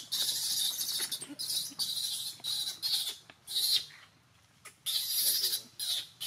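Baby macaque screaming in a string of shrill, high-pitched bursts, the first about a second long and the rest shorter.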